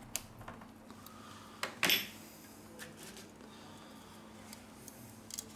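Small clicks and taps of a precision screwdriver and Huawei P10 phone parts being handled on a work surface, with one louder clack about two seconds in. A faint steady hum runs underneath.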